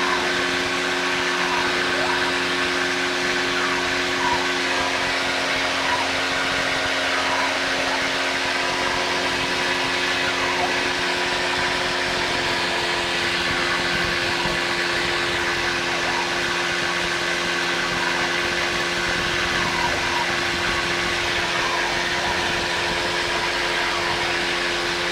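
Steady cockpit drone of an American Champion Decathlon's piston engine and propeller in a climb, a constant even hum with no change in pitch.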